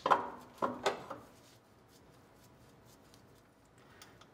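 New aluminium A/C compressor clunking against its metal mounting bracket as it is set into place: three knocks within the first second.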